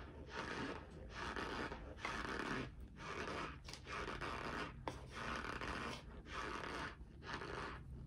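Chewing a mouthful of cornstarch chunks close to the microphone: a crunching grind with each chew, about once a second.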